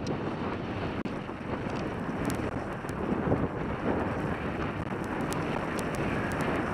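Wind rushing over a helmet-mounted camera's microphone during a ski descent, with the skis sliding over packed, groomed snow; the rush swells and eases every second or so.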